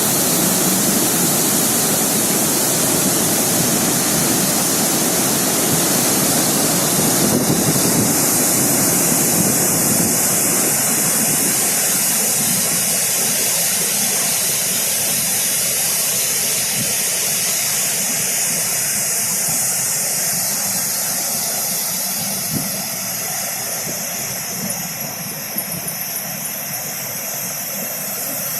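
Dam water rushing and pouring, a loud steady noise that eases slightly in the last several seconds.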